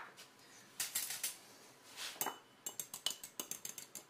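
A few scattered clinks, then, from nearly three seconds in, a fork beating egg and water in a small ceramic bowl: quick, even clinks of the tines against the bowl, several a second.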